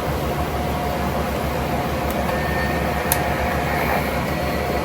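Electric fans running with a steady whirring hum, and a single sharp click about three seconds in.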